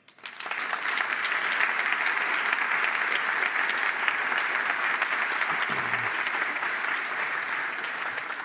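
Audience applauding: the clapping starts abruptly, holds steady and eases a little near the end.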